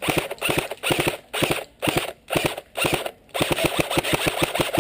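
Airsoft electric gun firing on full auto: several short bursts of about half a second each, then a longer burst near the end, at roughly a dozen shots a second.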